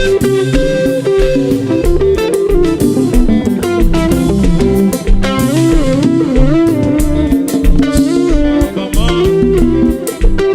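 Live konpa band playing an instrumental passage: an electric guitar melody over bass and a steady drum beat.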